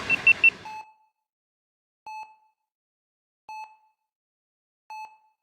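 Train running noise cuts off abruptly under a second in, with three quick high beeps over it. Then come single electronic beeps at an even pace, about one every 1.4 seconds, with dead silence between them, like a hospital heart monitor.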